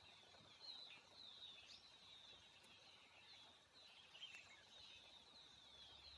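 Faint small birds chirping: a continual run of short, high chirps. A single short click right at the end.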